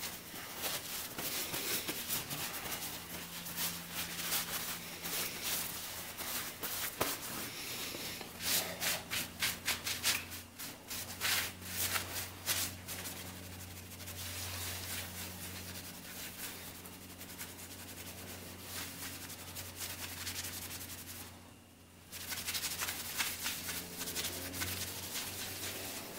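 A cloth shop rag rubbing and wiping the oily cylinder deck and piston top of a Clinton small engine, in quick scratchy back-and-forth strokes, with a brief pause about three-quarters of the way through.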